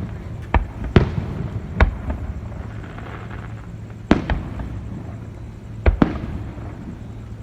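Aerial fireworks bursting: about seven sharp bangs in uneven clusters, some two in quick succession, over a steady low rumble.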